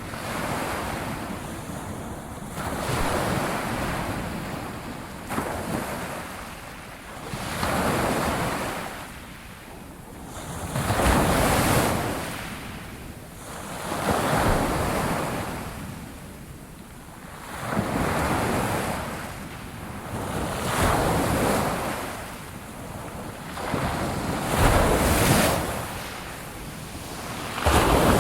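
Ocean waves washing ashore, the surf swelling and falling away in a slow cycle about every three to four seconds.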